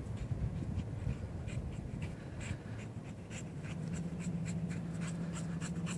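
Footsteps crunching through dry, dead grass: short scratchy steps, a few a second, over a low rumble of wind on the microphone. From about four seconds in, a steady low hum comes in underneath.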